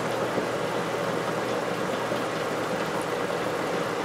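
Air stone bubbling steadily in a hydroponic deep water culture reservoir, aerating the nutrient solution, with a low hum beneath.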